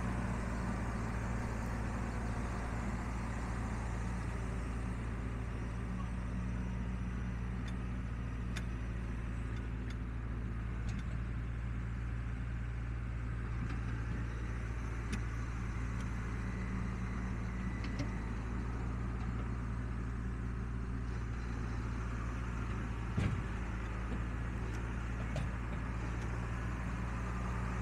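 John Deere 6175M tractor's six-cylinder diesel engine running at a steady low speed, a constant low hum. One brief knock sounds near the end.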